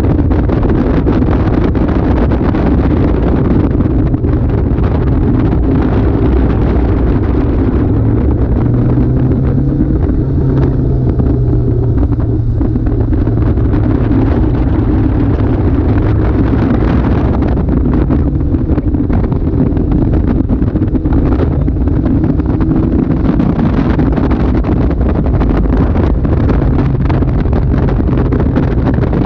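Caterham Super 7 engine running at track speed, its note rising and falling, heard from the open cockpit with heavy wind buffeting on the microphone.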